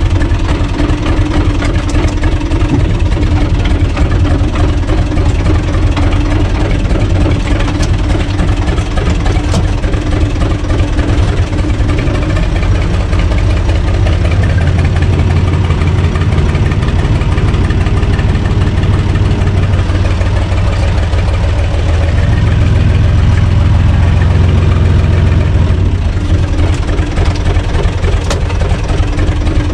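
UTB Universal 445 tractor's four-cylinder diesel engine running steadily at low revs, heard close up from the driver's seat. It runs a little louder and deeper for a few seconds about two-thirds of the way through.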